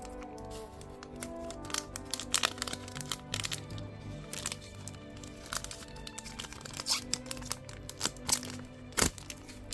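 Trading cards and their packaging being handled, giving a string of crinkles and sharp clicks, the loudest about nine seconds in, over background music.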